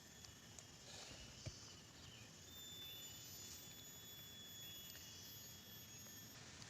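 Near silence, with faint steady insect trilling in a few thin high tones and a few soft clicks.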